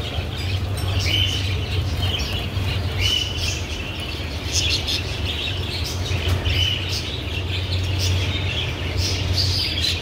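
A cage full of zebra finches calling, many short chirping calls repeated over and over, over a steady low hum.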